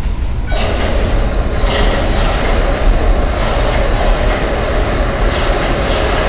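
New York City subway train, an R62A on the 1 line, approaching through the tunnel: a steady rumble of wheels on rail that gets fuller about half a second in.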